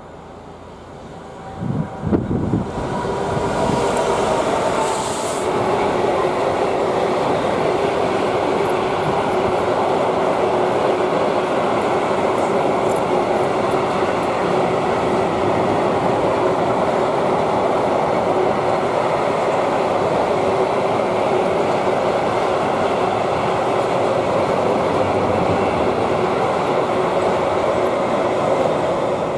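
A train passing close by on the line. The noise swells about two seconds in, then holds as a steady rumble of wheels on rail with a constant hum.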